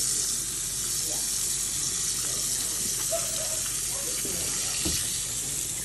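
Kitchen sink faucet running steadily, its stream splashing onto a wet capuchin monkey and into the sink basin.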